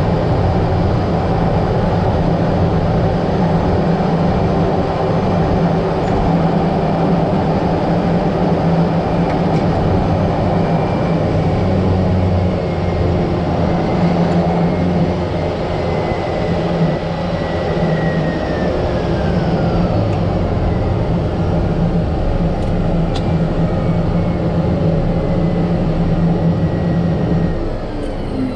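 Cessna 208 Grand Caravan's Pratt & Whitney PT6A turboprop engine and propeller running with a loud, steady low drone. A high whine falls in pitch about two-thirds of the way through.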